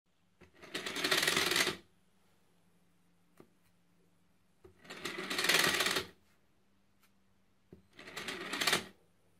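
Small DC motor driving a Lego conveyor belt through Lego gears, running three times: each run starts from a standstill and grows louder as the motor's PWM speed ramps up, then cuts off suddenly as the motor is switched off when a block breaks the infrared beam at the end of the belt.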